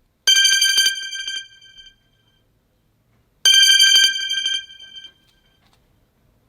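Samsung Galaxy Note 20 Ultra ringtone with a bell-like telephone ring: two trilling rings about three seconds apart, with a pause between them.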